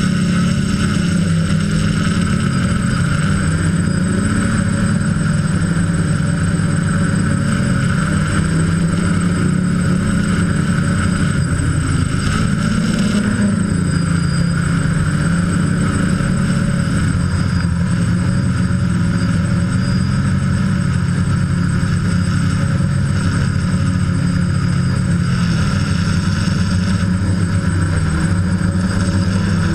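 DJI F550 hexacopter's six brushless motors and propellers buzzing steadily, heard up close from the camera on its frame. The pitch wavers as the throttle changes, rising briefly about twelve seconds in.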